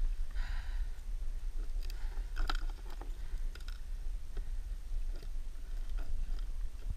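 Steady low wind rumble on the microphone, with scattered small clicks and rustles as a gloved hand handles a freshly caught fish and gear in the kayak.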